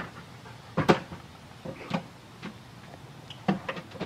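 A dog banging its front paws against a house door, several separate knocks at uneven intervals.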